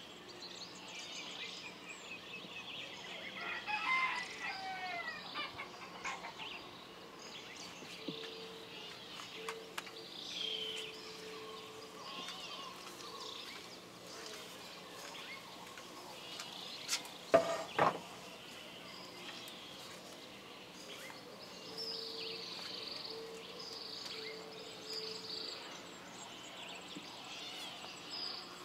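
Farmyard ambience of chickens and small birds chirping, with a rooster crowing about four seconds in. A couple of sharp knocks come close together about two-thirds of the way through.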